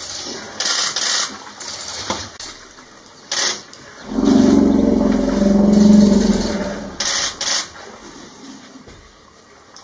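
African elephant giving a low, buzzing rumble about four seconds in that swells and then fades over a couple of seconds. A few short rushing noises come before and after it.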